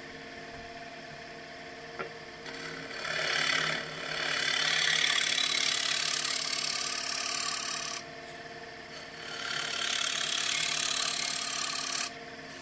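A wood lathe hums steadily while a flat high-speed-steel scraper cuts the surface of a spinning wooden platter. The scraping comes in passes: a short one from about two seconds in, a longer, louder one from about four to eight seconds, and another from about nine seconds until shortly before the end.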